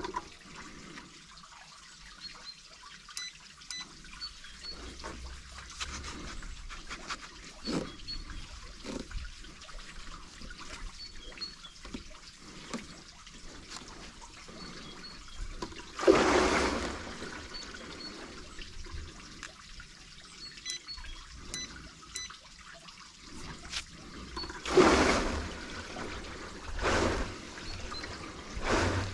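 Water swishing and churning in the polycarbonate tank of a VOWVIT V-W3 water rowing machine as it is rowed, with louder surges: one about halfway through and three near the end, about two seconds apart.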